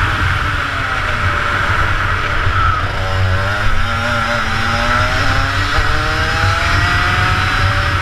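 Rotax Max 125cc two-stroke kart engine at high revs. The engine note drops about three seconds in as the kart slows for a corner, then climbs steadily as it accelerates out. Wind rumble on the microphone underneath.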